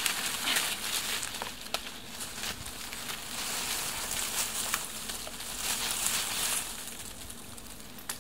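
A long dead log being lifted and dragged through dry leaf litter and past young spruce branches: steady rustling and scraping with many small twig snaps and cracks, busiest through the middle.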